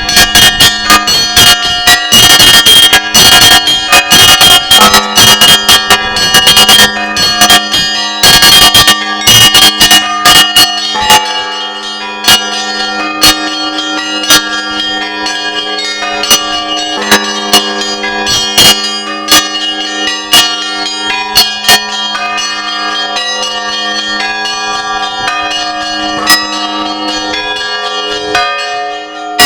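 Russian Orthodox church bells ringing out the Easter peal from the cathedral bell tower. For about the first eleven seconds many bells are struck in a fast, dense, loud pattern. After that come sparser strikes of the smaller bells over the lasting hum of the larger ones.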